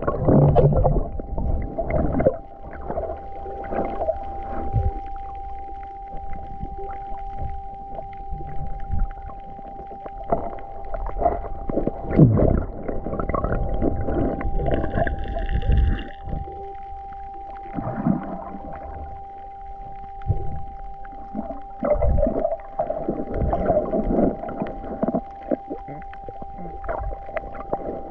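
Muffled water sloshing and gurgling around the camera, in uneven surges, over a steady thin high whine.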